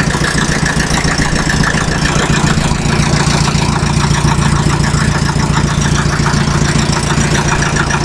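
Fiat 352C crawler tractor's diesel engine idling steadily with an even, rapid rhythm.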